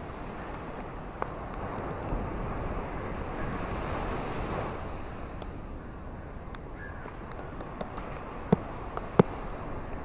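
Steady rain hiss that swells about halfway through, with a few sharp taps near the end, two of them louder than the rain.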